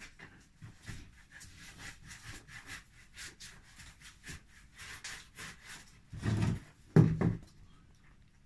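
Hands rubbing and rolling bread dough on a floured wooden table, shaping loaves: a run of soft brushing strokes, then two or three heavier thumps about six to seven seconds in.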